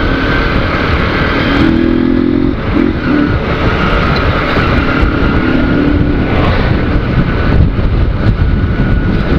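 Single-cylinder four-stroke engine of a 2008 Honda CG 150 Sport motorcycle running with its air filter removed as the bike is ridden, a steady loud engine note with heavy rumble.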